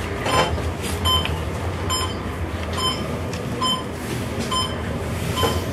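Elevator beeper sounding short, evenly spaced electronic beeps, a little under a second apart, about seven in all, over the low steady hum of the moving glass elevator.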